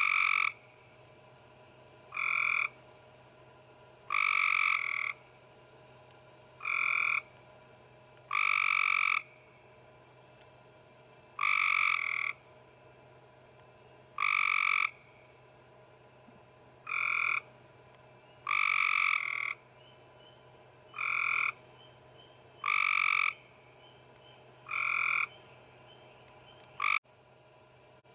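A frog calling over and over, about one croak every two seconds, some calls short and some about twice as long.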